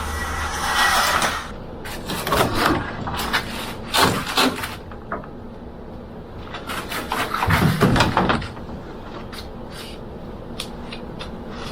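Irregular knocks, clatters and scrapes of building materials being pulled down and handled during demolition, with the loudest burst of scraping and banging about eight seconds in.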